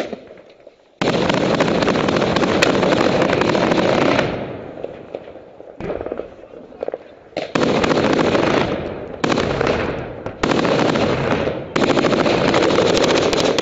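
Close automatic gunfire in long sustained bursts. The first burst starts about a second in and lasts about three seconds. After a lull, several more bursts of one to two seconds each follow, close together, from about halfway on.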